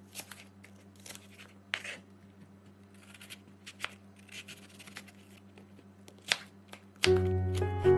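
Knife slicing through raw apple on a cutting board: scattered crisp crunches and taps of the blade against the board over a low steady hum. Music starts loudly about seven seconds in.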